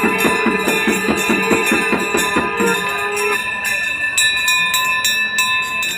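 Aarti music: rapid, even drumbeats that stop about two and a half seconds in, over temple bells ringing steadily and jingling hand cymbals that carry on.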